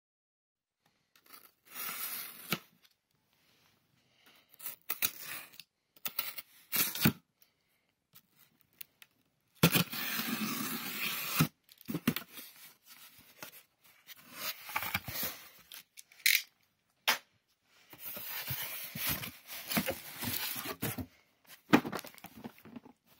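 A box cutter slitting the packing tape on a cardboard shipping box, with the tape tearing and the cardboard scraping, in several separate bursts with short pauses between them. The longest and loudest burst comes about ten seconds in, and a few sharp knocks come in between.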